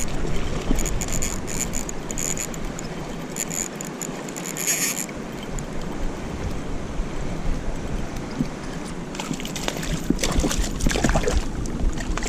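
Steady rush of flowing stream water with wind buffeting the microphone, gusting harder in the last few seconds. Scattered high-pitched ticks come through during the first few seconds.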